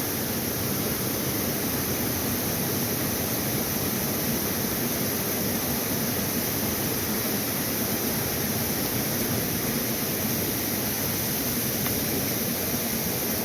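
Steady rushing hiss of running creek water, even and unbroken.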